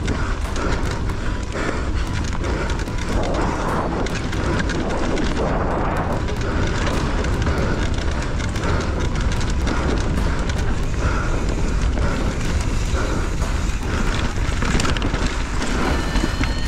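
Mountain bike being ridden fast down a rough trail. Wind buffets the mounted camera's microphone with a constant rumble, and the tyres, chain and frame keep up a dense clatter of rattles and knocks over the ground.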